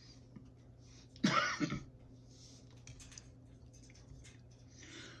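A man coughs, a quick double cough about a second in, over a low steady hum; a few faint clicks follow.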